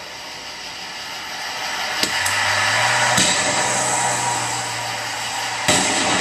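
Fireworks going off: sharp bangs about two and three seconds in, and a louder bang near the end as a shell bursts, over a steady hiss. A low hum runs through the middle.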